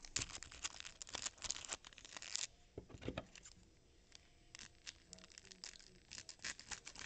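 A stack of freshly unwrapped Topps Chrome trading cards and their plastic pack wrapper handled in the hands: a dense run of crinkling and rustling for about the first two and a half seconds, then scattered soft clicks as cards are slid off the stack one at a time.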